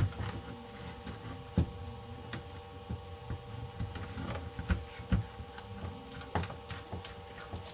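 A small screwdriver turning a tiny screw into a laptop display hinge: a few scattered light clicks and scrapes of metal on metal. A steady hum runs underneath.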